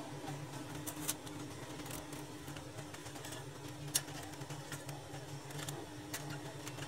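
Steady low hum with a few light, sharp clicks, one about a second in and a louder one about four seconds in, from printer parts being handled during reassembly.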